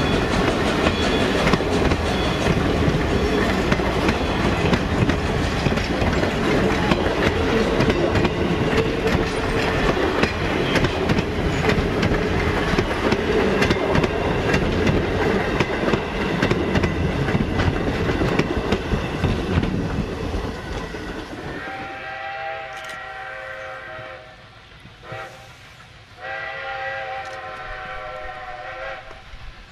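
A steam excursion train's passenger coaches roll past close by, wheels clicking steadily over the rail joints. After a cut about two-thirds of the way through, a steam locomotive's chime whistle blows two long blasts in the distance.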